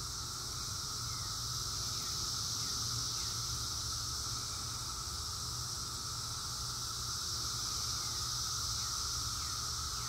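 Chorus of cicadas: a steady, unbroken high-pitched drone, with a weaker lower steady hum beneath it and a few faint short falling chirps.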